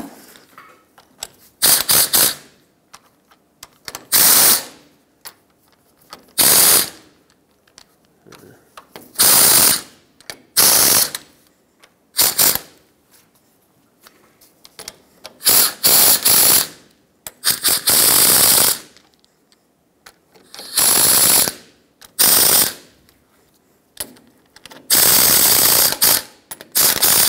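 Socket ratchet snugging down the ball-joint-to-knuckle bolts in a cross pattern, heard as about a dozen short bursts of rapid clicking with pauses between them as the tool moves from bolt to bolt.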